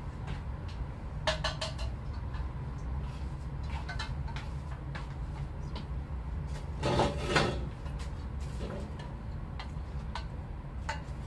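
Scattered light clicks, knocks and clinks of a cup, spoon and other household things being handled, with a louder patch about seven seconds in, over a steady low hum.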